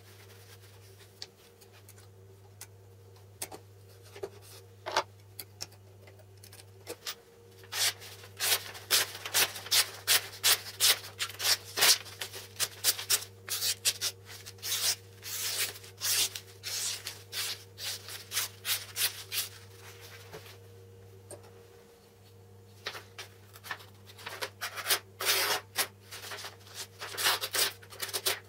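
A freshly sharpened knife slicing through a sheet of paper in quick repeated strokes, each cut a short crisp rasp, testing the edge. After a few quiet seconds of paper handling the cuts come thick and fast, stop briefly, then start again near the end.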